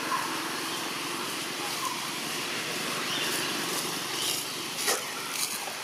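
Steady outdoor background noise, with a few faint short squeaks from a baby macaque and a couple of light clicks near the end.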